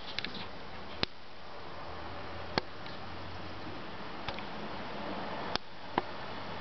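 A steady hiss with about five sharp, separate clicks scattered through it, roughly a second or more apart.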